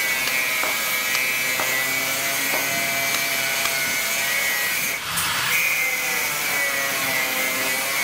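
Power tool running steadily with a high whine, and a few sharp knocks about a second apart in the first few seconds from a club hammer striking a chisel into a concrete floor.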